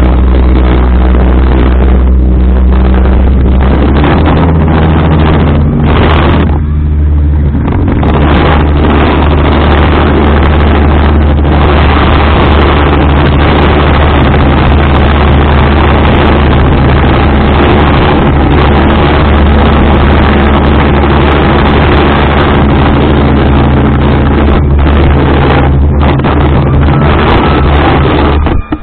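Speedboat engine running steadily at speed, a constant drone under a heavy rushing noise of wind and water.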